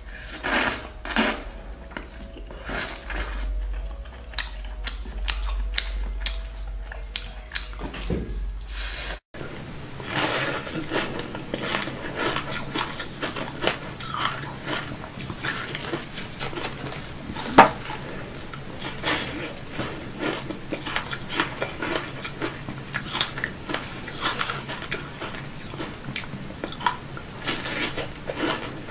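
Close-miked eating sounds: lip smacks, sucking and chewing at spicy razor clams over a steady low hum. After a cut about a third of the way in, a denser run of moist, crackly chewing clicks follows, with one sharp louder click about two-thirds of the way through.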